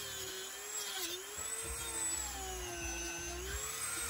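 Dremel rotary tool cutting into a plastic hose end: a steady high whine whose pitch dips briefly about a second in and sags again around three seconds as the spinning bit bites into the plastic.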